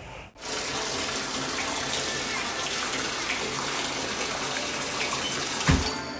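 Shower running, its spray hissing steadily onto the tub and tile, starting suddenly just after the opening moment. A dull thump near the end.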